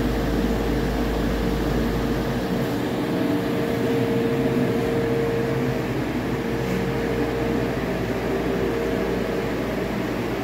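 Cummins B6.7 inline-six turbo diesel engine running steadily on a test stand, a used engine being test run.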